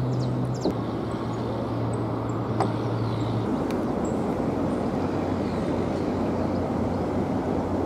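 Steady city traffic noise with a low engine hum that shifts lower partway through, a few faint high bird chirps, and a single sharp click about two and a half seconds in.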